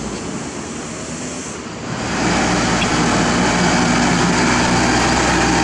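Engine of heavy road-construction machinery running steadily, becoming louder about two seconds in.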